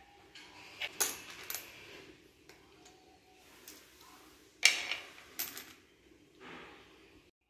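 Cockle shells clicking and clattering as cockles are prised open by hand and knocked against one another, in scattered sharp clicks, the loudest a little past halfway.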